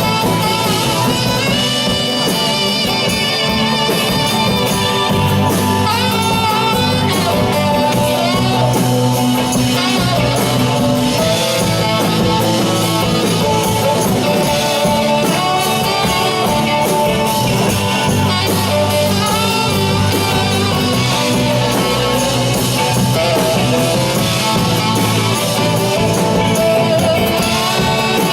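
Live rock band playing, with guitar and a wavering, vibrato-laden lead line or voice over a steady bass.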